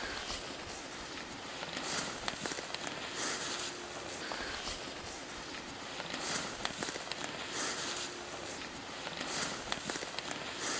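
Footsteps through tall dry grass and weeds: a swish and crackle of stems brushing against legs and clothing with each stride, every second or so.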